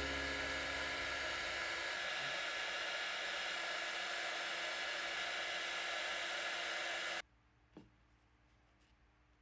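Heat gun running steadily, blowing hot air onto a shrink-plastic charm to shrink it. It cuts off suddenly about seven seconds in, leaving near quiet with one soft thump.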